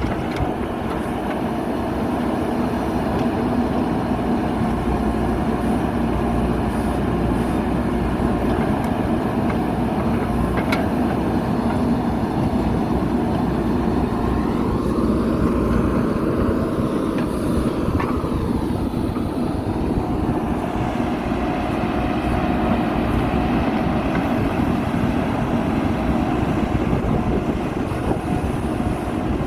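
JCB backhoe loader's diesel engine running steadily while working, its note shifting around the middle. A couple of faint knocks are heard during it.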